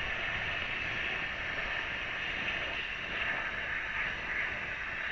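Oxy-acetylene torch flame hissing steadily while heating a seized CV axle nut to break it loose.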